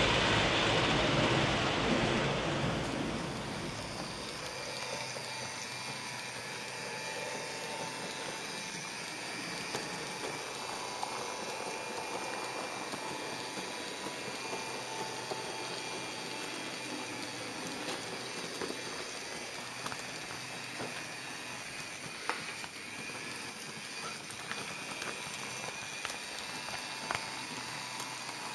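An HO-scale model camera car rolling along the track, a steady quiet running noise with a faint motor whine and a few small clicks from the wheels. A loud rumbling noise fades out over the first few seconds.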